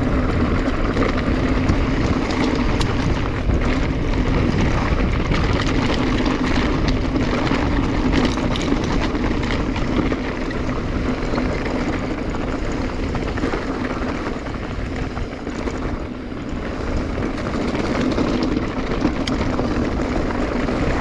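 Steady wind rush on a chest-mounted action camera's microphone with the mountain bike's tyres rolling over loose dirt and rock, and scattered clicks and rattles from the bike. The rush eases briefly a little past the middle.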